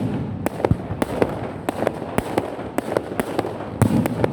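Fireworks going off in a rapid barrage: sharp cracks about three a second over a continuous crackling haze, with heavier low booms near the start and again near the end.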